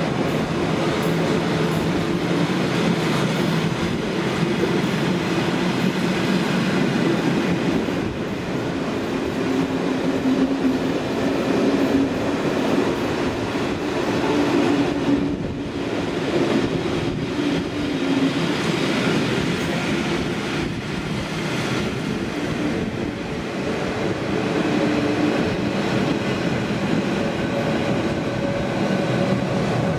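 Passenger train rolling slowly past a platform in an enclosed station: a steady rumble of wheels on rail with some clicking, under a low hum that shifts in pitch now and then.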